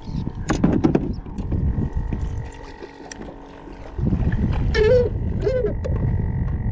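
Kayak moving on open water: a few handling clicks in the first second, then from about four seconds a steady low rumble of wind and water as the kayak is pushed along with a pole. Two short wavering cries sound about five seconds in.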